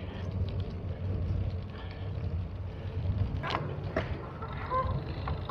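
Steady low rumble of wind and riding noise from a bicycle rolling along a park path, with two sharp clicks about three and a half and four seconds in. Faint short bird calls come near the end.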